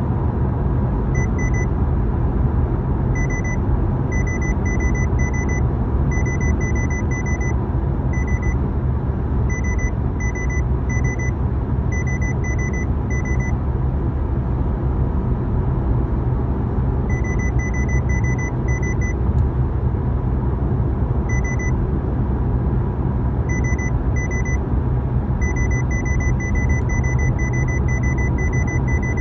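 Short high-pitched electronic beeps from a 2016 Honda Civic, coming in irregular runs of about three a second with pauses of a few seconds between runs, over the steady low rumble of the car.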